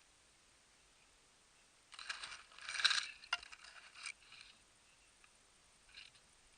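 Close rustling and scraping for about two seconds, with a sharp click partway through and a brief faint rustle near the end.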